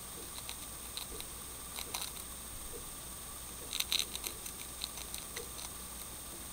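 Dwarf hamster nibbling a cracker and stuffing it into its cheek pouches: faint, irregular small clicks, with a quick cluster about two seconds in and a louder one about four seconds in.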